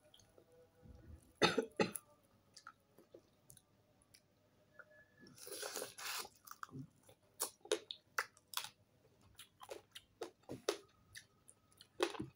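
Mouth sounds of eating fried tilapia and rice by hand: chewing with sharp, crisp crackles, the loudest about one and a half seconds in, and a longer crunch about halfway through.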